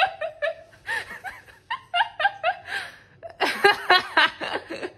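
A person laughing in several bouts of quick, repeated ha-ha pulses, pausing briefly between bouts.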